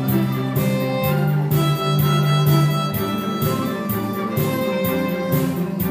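Violin playing a pop melody live over an amplified backing track with a steady beat and bass.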